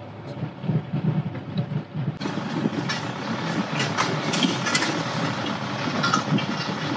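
A car driving slowly over a rough dirt track: a steady low rumble of tyres and engine, with irregular knocks and rattles as it bumps over the ground. It gets louder and rattles more about two seconds in.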